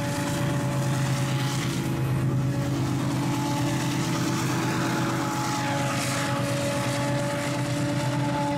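Diesel-electric freight locomotives running as they pull past, a steady engine drone with several held tones, with the hopper cars rolling along behind them.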